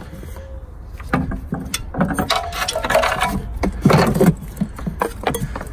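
Old rusted clutch cable of a Hyundai i10 being tugged and worked out through the firewall: a run of clicks and knocks with rubbing, scraping bursts, busiest from about two to four seconds in.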